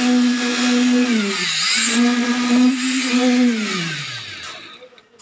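Electric concrete poker vibrator running with a steady hum. Its pitch sags briefly about a second in, recovers, then slides down and dies away as the motor winds down.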